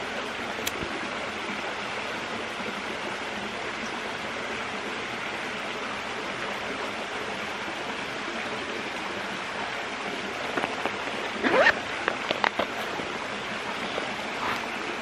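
Steady rushing of a creek flowing over rocks. About ten seconds in, a short burst of crinkling and crackling as a hand rummages in a clear plastic bag.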